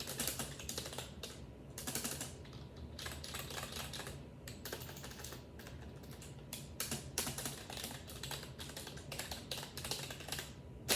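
Membrane computer keyboard being typed on at random, irregular keystrokes coming in quick runs with short gaps.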